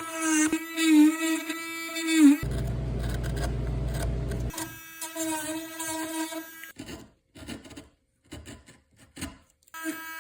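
A high-speed rotary carving tool whining at a steady pitch as it grinds wood, the pitch dipping briefly when the bit bears into the cut. About two and a half seconds in, a two-second stretch of low rumbling noise covers it, and in the second half the sound comes in short, choppy pieces.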